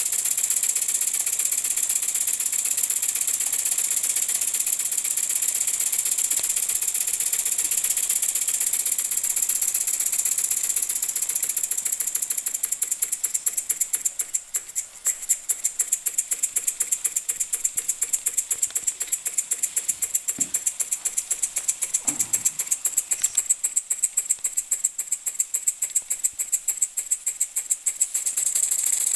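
Jensen 20 toy steam engine running with a fast, steady chatter; about twelve seconds in it slows as its control lever is worked, and the chatter opens into distinct, evenly spaced beats. A couple of light knocks come just past the middle.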